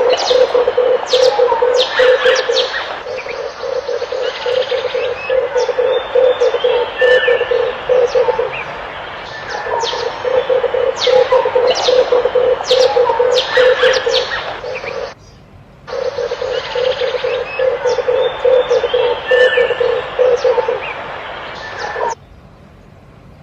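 Red turtle dove cooing: phrases of a rapid, low, pulsing coo repeated over and over, with sharp high chirps of other birds over it. The sound breaks off abruptly for about a second about two-thirds of the way in, and stops shortly before the end.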